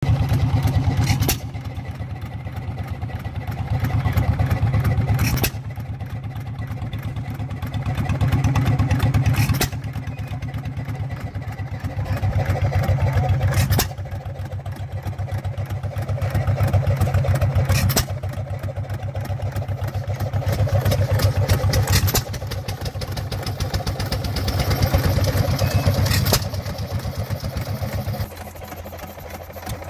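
Antique hit-and-miss gas engine running on its governor: a fast even beat that turns louder for a second or two about every four seconds and then falls back quieter, the cycle of firing strokes and coasting on the flywheels. Each louder run ends with a sharp crack, and near the end the sound drops to a different, quieter engine.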